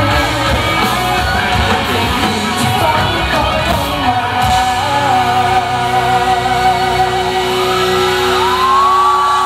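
Male lead vocalist singing live over a rock band, holding one long note at the close of the song while the band plays under it. Near the end, the audience starts screaming and whooping.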